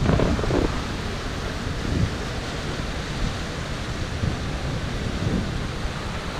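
Wind buffeting the microphone over a steady outdoor hiss, with low rumbling gusts strongest near the start.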